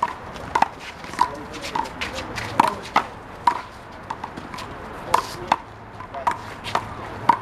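Hollow rubber handball (a big blue ball) being struck by hand and hitting the wall and the court in one-wall handball play. The sharp smacks come at irregular times, about one or two a second, each with a short ringing ping.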